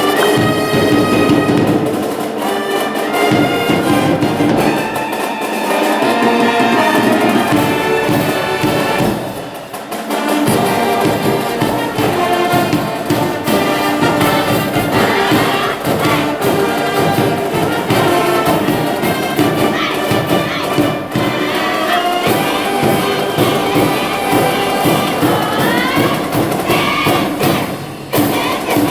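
School brass band playing a baseball cheering tune: trumpets and trombones carrying the melody over a steady drum beat.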